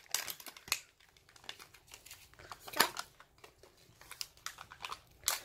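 Plastic wrapping of a Kinder Joy toy crinkling in the hands as it is unwrapped, in scattered soft crackles and small clicks, one louder crackle about halfway through.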